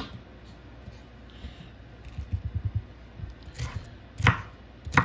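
Chef's knife slicing a red bell pepper into strips on a wooden cutting board: a quick run of light taps about two seconds in, then a few sharp knocks of the blade on the board near the end.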